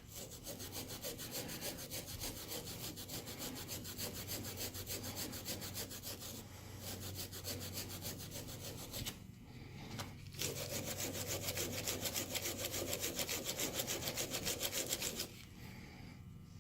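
Wire brush scrubbed back and forth over the rusty steel of an Armstrong machinist jack, a rapid scratching of several strokes a second. It pauses twice, grows louder for a few seconds near the end, then stops suddenly.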